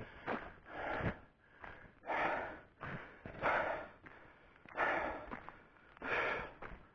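A man breathing hard through an open mouth, about five heavy breaths, one every second and a quarter or so. He is out of breath from the exertion of hiking up a steep hill.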